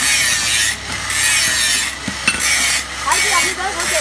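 A rhythmic rasping hiss that surges about once a second, with short dips between. A couple of light hammer taps on hot steel at the anvil come in the second half.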